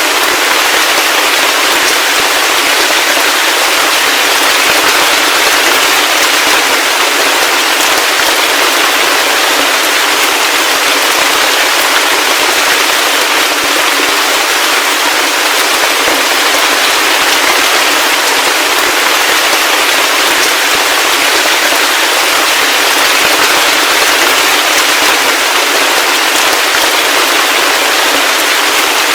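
Heavy rain falling steadily: a loud, dense, even hiss of many drops with no low rumble underneath.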